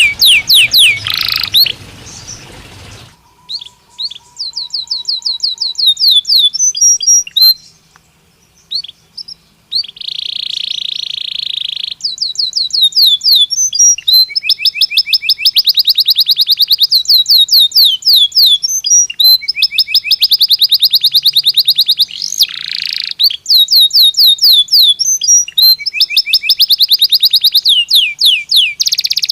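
Belgian canary singing: long fast trills of repeated falling notes, with buzzy rolled passages and short pauses between phrases.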